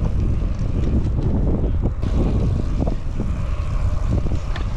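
Wind buffeting the microphone of a camera on a moving road bicycle: a steady low rumbling rush.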